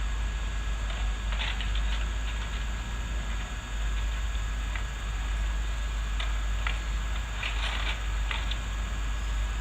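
Backhoe engine running steadily with a low rumble, while brush and branches crackle and snap in short clusters, about a second and a half in and again near the end, as the machine clears undergrowth.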